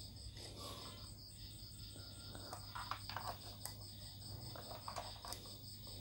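Faint steady high-pitched trill over a low hum, with a few soft clicks and knocks as a plastic power adapter and its cable are handled on the bench, mostly in the middle of the stretch.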